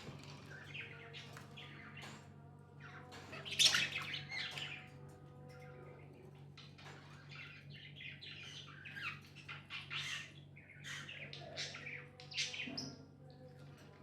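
Pet budgerigars chirping in quick, overlapping calls, with one louder, harsher squawk about four seconds in.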